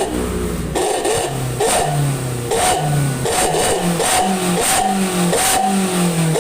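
Daihatsu Gran Max engine revved in short repeated blips through a newly fitted SUOS 'ngorok' straight-through muffler, a growling exhaust note. The blips come quicker toward the end.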